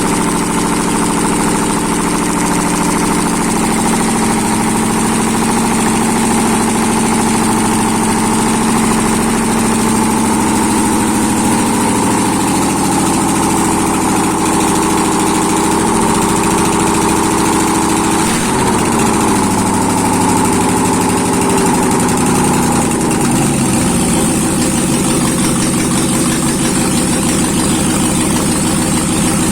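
Freshly overhauled ZMZ-511 V8 gasoline engine idling steadily; past the middle its idle speed dips and settles a little lower.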